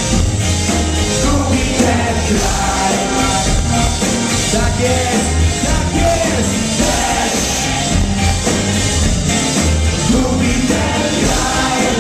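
Live band playing with a lead singer on microphone: drums, electric guitar and keyboard over a steady heavy beat, heard from among the concert audience.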